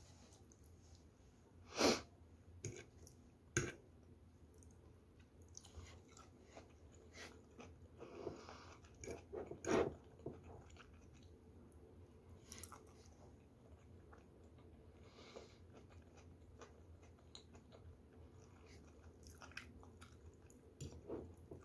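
Quiet close-up eating of fried rice: soft chewing with a few sharp clicks of a metal fork against the plate, the loudest about two seconds in and near the middle.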